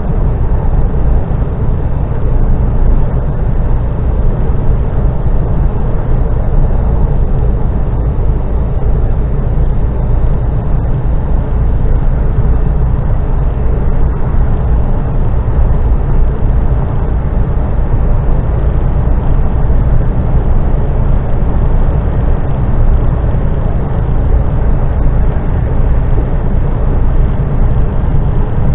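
Steady, low engine and road rumble inside a vehicle cruising on a motorway.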